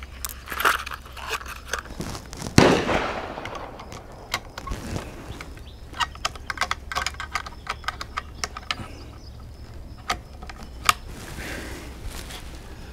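Small metallic clicks and clacks of .22 Magnum cartridges being loaded and a bolt-action rifle being handled, with one loud gunshot and its echo about two and a half seconds in.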